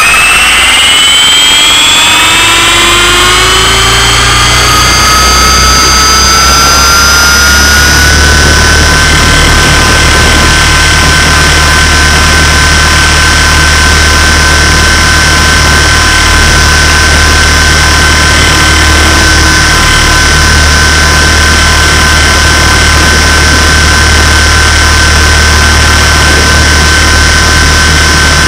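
Align T-Rex 450 SE electric RC helicopter spooling up, its motor and rotor whine rising in pitch over the first several seconds, then holding a steady high whine with a low rotor hum as it lifts off and flies. Heard very close, from a camera mounted on the helicopter itself.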